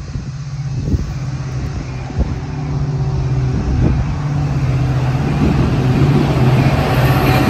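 EMD F40PH-type diesel locomotive hauling a Metra commuter train, its engine running with a steady low drone that grows louder as the train approaches. A rushing hiss of the passing train comes in at the very end.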